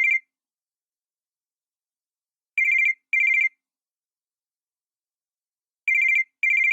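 Cell phone ringtone in a double-ring pattern: two short electronic warbling trills in quick succession, the pair repeating about every three seconds with silence between.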